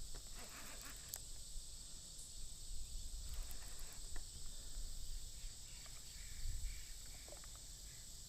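Steady high-pitched chorus of insects such as crickets, with a low rumble underneath and a few faint clicks.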